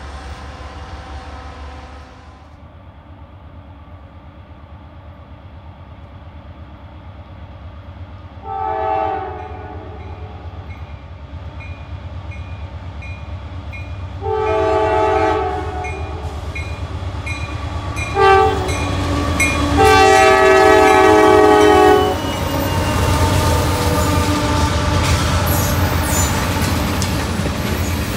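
An approaching diesel locomotive sounds its chime air horn as a chord of several notes in the long, long, short, long grade-crossing pattern, over the low rumble of its engine. After the last long blast, the rumble and rail noise swell as the train comes close.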